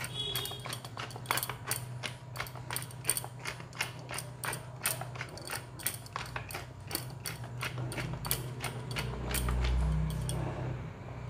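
Pepper mill being twisted to grind black pepper: a long, rapid run of ratcheting clicks that eases off near the end.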